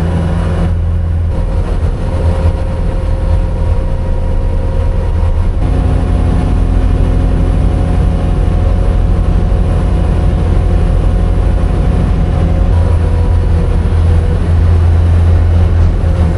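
A heavy engine running steadily with a loud, low hum.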